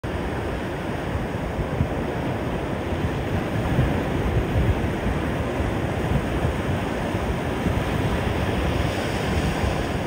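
Steady ocean surf washing up the beach, with wind buffeting the microphone in low gusts.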